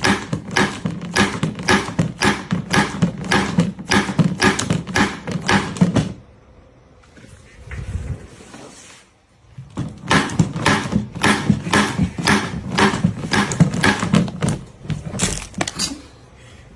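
A rapid, even series of knocks or taps, about three a second, stopping for a few seconds in the middle, then resuming.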